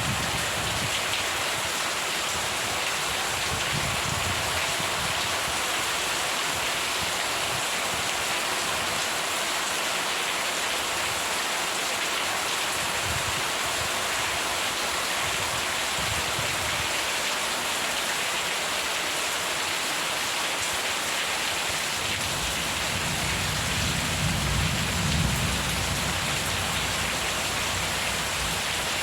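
Steady rain falling, an even hiss, with a low rumble of thunder swelling and fading near the end.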